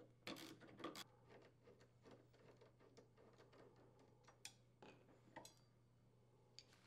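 Near silence with a few faint clicks and taps of a screwdriver and metal parts: screws being backed out of the refrigerator's steel roller bracket and the bracket being handled as it comes off. A faint steady low hum sits underneath.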